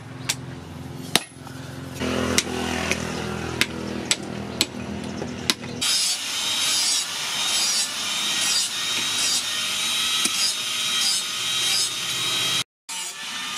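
Hand-hammer blows on red-hot steel held on a post anvil, sharp separate strikes about once a second, over a low steady hum. About six seconds in, a loud, steady rasping, scraping noise takes over and drops out briefly near the end.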